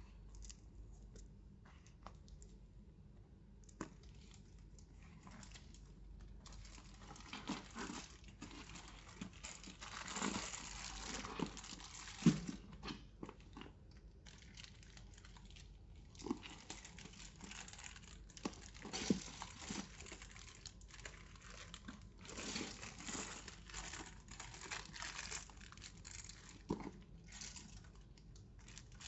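Packaging crinkling and rustling in bursts as it is handled, with a few sharp clicks; the loudest click comes about twelve seconds in.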